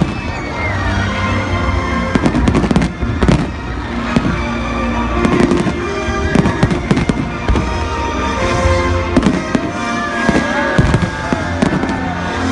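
Fireworks display: a rapid string of bangs and crackles, several a second, over loud music playing.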